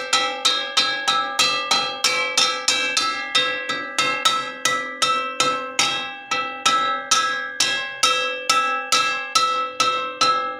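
Metal wok (wajan) struck over and over in a steady rhythm, about three to four hits a second. Each hit rings with several bell-like tones that carry on into the next hit.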